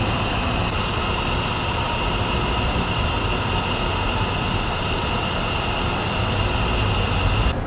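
Steady outdoor rumble and hiss, strongest in the low end, with a faint steady high whine over it; the hiss brightens slightly about a second in.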